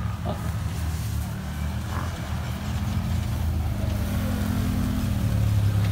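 Side-by-side off-road vehicle engines running at low revs as the vehicles drive slowly past. The engine note rises and falls about midway, and the sound gets louder near the end as the next vehicle comes close.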